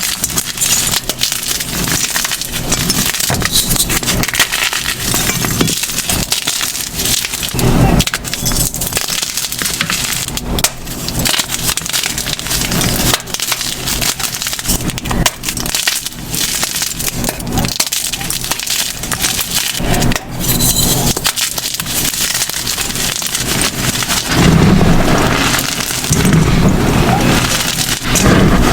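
Blocks of gym chalk being crushed close up: dense, crisp crackling and crunching, with many sharp snaps. Near the end the crunch turns fuller and lower as the chalk breaks down into a softer crush.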